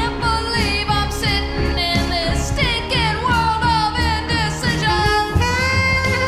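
Pop song with a sung vocal line over drums and bass, with no words heard clearly.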